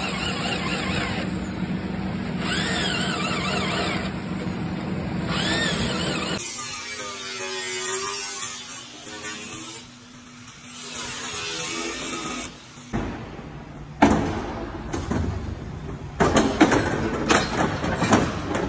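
Cordless drill boring into a car's sheet-metal floor pan, running steadily with a squeal that comes and goes about every couple of seconds. After a cut, a handheld electric power tool whirs against the body panel. Near the end come several sharp metal knocks.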